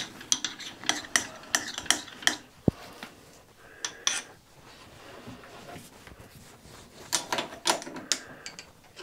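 Metal hand tools clinking and clattering as they are handled at a lathe, a run of sharp clicks in the first couple of seconds and another near the end, with quieter handling between.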